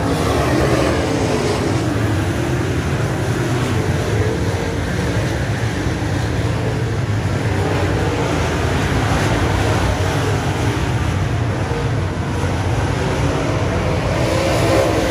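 Dirt late model race cars' V8 engines running hard as the field laps the dirt oval. It is a steady, loud din whose engine pitches waver up and down as cars pass.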